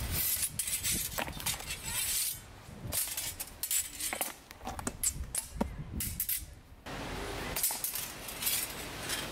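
Steel practice swords and bucklers clinking and knocking together during sword-and-buckler drills: a run of short, sharp metallic clicks at irregular intervals, with rustling between them.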